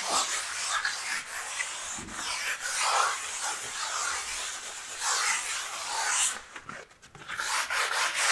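Hand-sanding a dried oil-based primer coat on a wall with 180-grit sandpaper on a foam block: a run of long scratchy strokes with a short pause about two-thirds through. It is the light scuff that knocks down small bumps and fibres before the finish paint.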